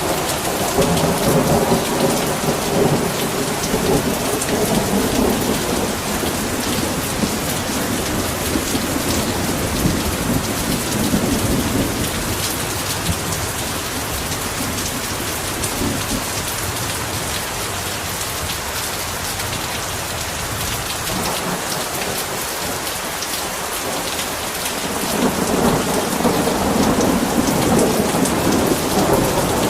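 Heavy rain pouring steadily, with rolling thunder rumbling under it for the first several seconds, easing off around the middle and building again near the end.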